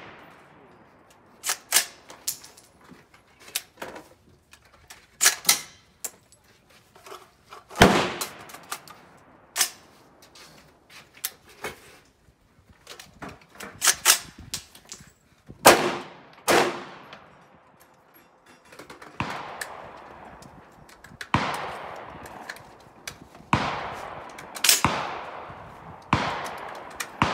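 Gunshots from a rifle, about twenty in all, many fired as quick pairs, each shot followed by a short echoing tail.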